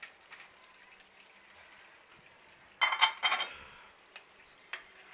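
Cubed green bell pepper tipped from a bowl into a pan of simmering potatoes: a short clatter of pieces and dish striking the pan about three seconds in, with a few light clicks before and after.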